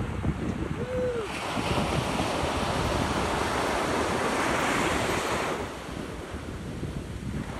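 Ocean surf breaking and washing in the shallows: a rush of water that swells about a second in and dies away near six seconds, over a low rumble of wind on the microphone.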